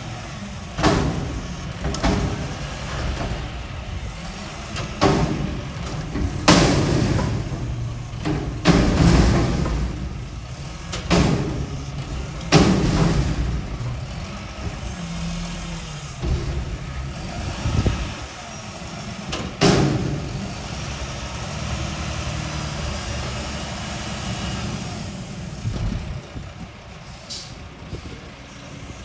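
Garbage truck engine running while a dumpster is dumped, with a string of loud metal bangs spread over the first twenty seconds, then the engine running more steadily.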